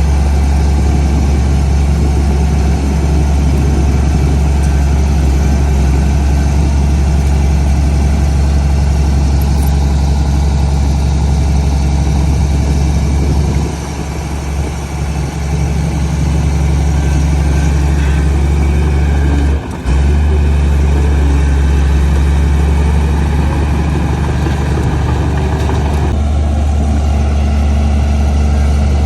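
Komatsu D58P bulldozer's diesel engine running steadily with a deep drone. The sound eases off for a couple of seconds around the middle, drops out for an instant shortly after, and changes a little near the end.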